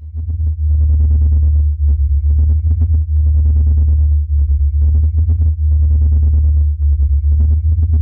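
Synthesized space-ambience drone of the kind used as a moon's 'sound': a deep, steady electronic hum that flutters rapidly, with fainter higher tones and a light crackle over it.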